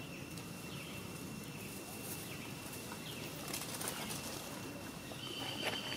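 Quiet outdoor ambience: a steady hiss with a thin, high, steady insect tone, and a few faint short chirps in the middle.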